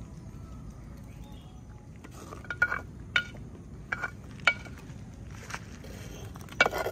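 A long steel ladle stirring snails in a clay cooking pot, clinking sharply against it several times, with a louder cluster of clinks near the end.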